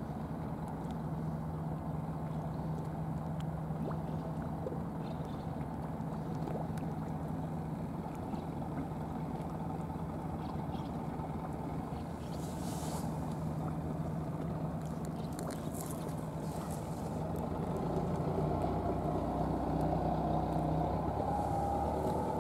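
A steady engine drone: a constant low hum that grows louder and fuller in the last few seconds.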